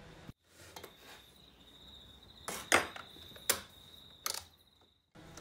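Four light metallic clinks in the second half, from a socket driver and small metal parts being handled on a workbench, over a faint steady high-pitched whine.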